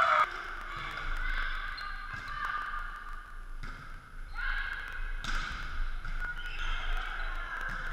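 Indoor volleyball rally: the ball struck sharply a few times, the hardest hit about five seconds in, with players calling out and the sound echoing around a large sports hall.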